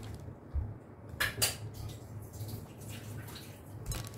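Metal spoon scooping and scraping watermelon flesh out of the rind, with a couple of sharp clinks and scrapes about a second in.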